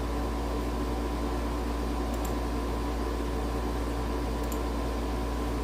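A steady machine hum: a strong low drone with several fixed tones over an even hiss, unchanging throughout, with a couple of faint clicks.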